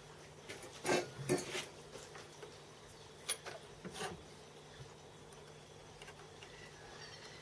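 Light knocks and clinks of metal tools and parts being handled on a workbench, about five of them in the first four seconds, over a faint steady hum.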